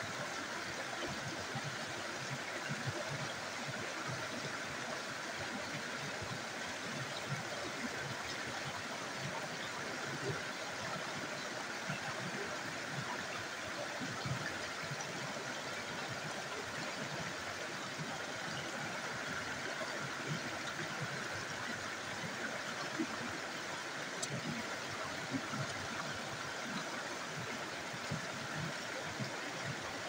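Steady rush of a small stream running over rocks.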